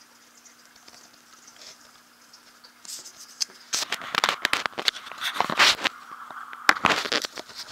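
Close handling noise: irregular scraping, rustling and clicking that starts about three seconds in and grows loud, over a faint steady hum.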